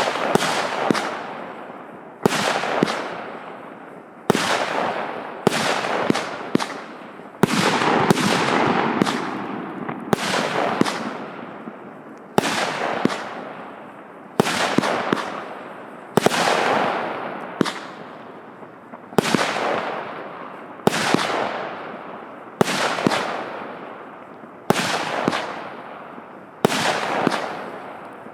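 A 100-shot, 0.8-inch consumer fireworks cake (Joker Fireworks 'Confetti' JF C20-100/03U) firing shot after shot. A sharp bang comes about every one and a half to two seconds, each followed by a crackling burst that fades.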